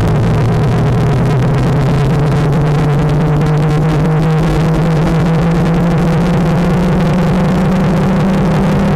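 Extremely loud, heavily distorted audio: a steady low drone under a harsh wall of noise, held at a flat, clipped level throughout, the blown-out sound of a deliberately overdriven meme edit.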